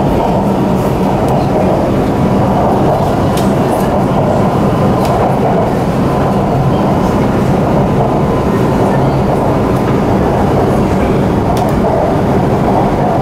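Shanghai Metro Line 9 train running at speed, heard from inside the carriage: a steady rumble with a faint, even whine and a few light ticks.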